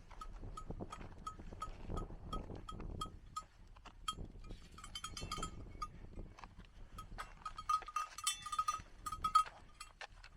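Small livestock bell, as worn by grazing sheep, clinking in a steady rhythm of about three strikes a second, ringing faster and louder near the end. A low rumble lies underneath for the first part.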